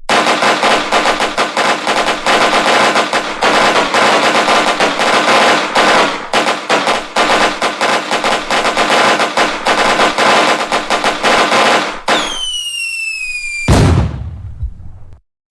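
Fireworks going off: about twelve seconds of dense, rapid crackling pops, then a whistle falling in pitch and one deep bang near the end.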